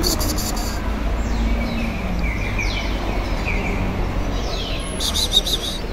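Small birds chirping repeatedly in short, quick falling notes, with a cluster of sharp high chirps at the start and another near the end, over a steady low background rumble.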